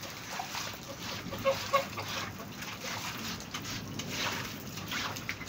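Heavy rain pattering and splashing into shallow floodwater on a floor. Two short, sharp calls cut through about a second and a half in.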